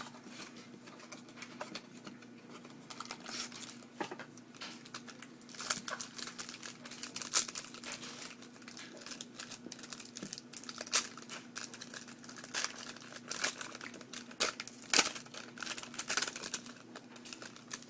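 A trading card pack wrapper being crinkled and torn open, with irregular crackles and clicks as the cards are handled.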